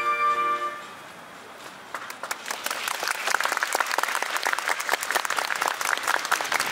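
A wind band's final held chord cuts off under a second in; after about a second of quiet, the audience breaks into applause that keeps going.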